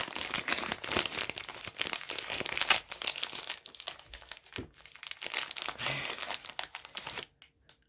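Wrapping crinkling and rustling in the hand as a small diamond-painting tool is unwrapped, a dense run of irregular crackles that stops a little after seven seconds in.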